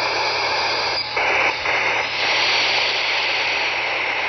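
FM radio receiver hiss and static on CB channel 20 (27.205 MHz) while the repeater is being keyed up. The hiss changes tone about a second in and again about two seconds in.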